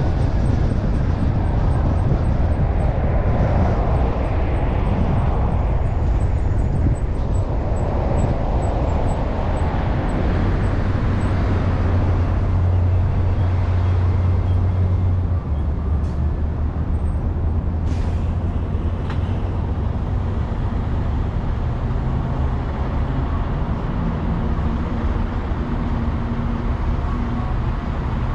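Car driving on a road: steady low rumble of tyre and engine noise, dropping a little about halfway through.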